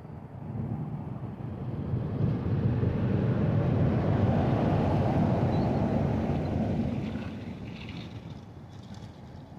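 A vehicle passing by: a low rumble that builds over the first couple of seconds, holds, then fades away about seven seconds in.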